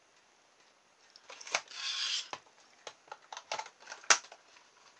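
A plastic toy RC car and a small screwdriver being handled on a workbench: a short rustle and several light clicks and knocks of plastic, the loudest about four seconds in.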